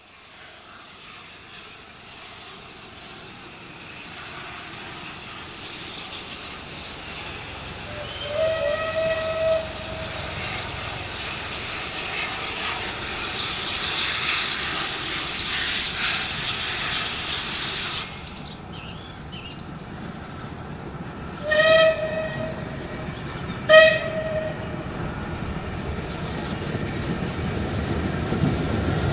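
Steam locomotive hauling a passenger train, approaching and growing steadily louder. Its whistle sounds once for about a second a third of the way in, then gives two short blasts later on.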